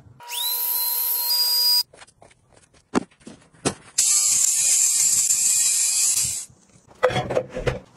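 A small electric motor whirs for about a second and a half near the start, its pitch rising as it spins up, followed by light clicks. Then an electric fabric shaver (lint remover) runs for about two and a half seconds as it is drawn over a knit sweater, a steady high whirring hiss that stops suddenly, followed by rustling.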